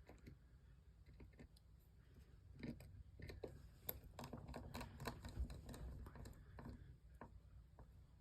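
Faint, scattered small clicks and taps of small tools and smartphone parts being handled while putting the phone back together, busiest in the middle.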